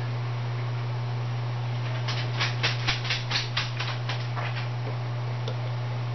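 Beer glugging out of a glass bottle into a tilted pint glass: a quick run of about ten glugs, roughly four a second, starting about two seconds in and dying away. A steady low hum runs underneath.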